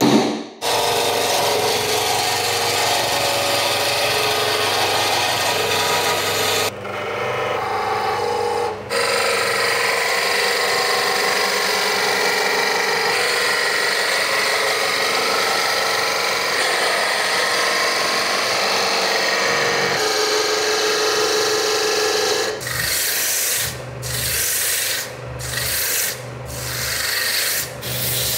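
A single hammer blow, then a Holzstar wood lathe spinning a wooden blank while a turning gouge cuts it, giving a steady hiss of shavings over the low hum of the lathe motor. From about 22 seconds in, sandpaper is held against the spinning piece in several short strokes.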